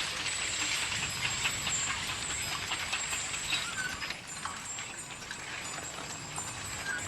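Open-air ambience with a steady hiss and many small scattered clicks, a little quieter from about halfway through.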